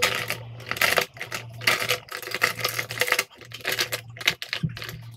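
Irregular clicking and rustling from things being handled close to the phone's microphone, over a steady low hum.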